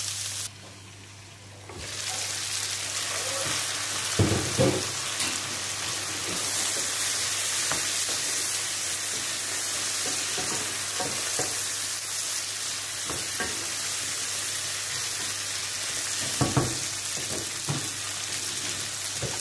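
Chicken strips, onions and red bell pepper sizzling as they fry in a frying pan, stirred with a wooden spoon that knocks against the pan a few times. The sizzle drops away briefly about half a second in, then carries on steadily.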